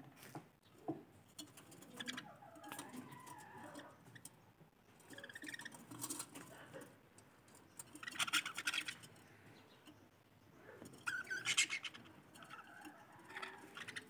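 Budgerigars chattering and warbling in a cage, with several louder, harsher bursts of chatter about 8 and 11 seconds in.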